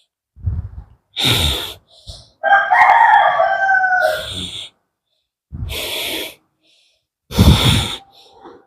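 A rooster crows once, starting about two and a half seconds in and lasting about two seconds. Around it are several short, breathy huffs from a person.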